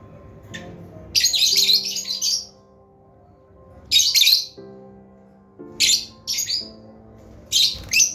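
Lovebirds chirping and chattering in short, shrill bursts, about six in the stretch with pauses between them. Soft background music with held notes plays underneath.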